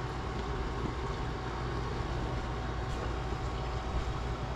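A steady low rumbling hum that does not change.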